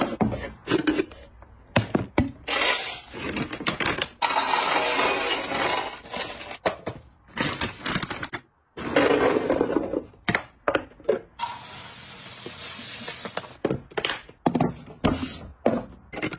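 Plastic and foil food packaging crinkling as it is handled and opened, with dried food pieces clattering into clear plastic storage canisters, in a string of short crackly handling sounds and clicks with brief pauses.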